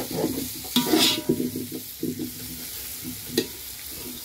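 A metal spoon stirs and scrapes onion, tomato and spice masala around a steel pot while it sizzles and fries. A few sharper clinks stand out, the loudest about a second in.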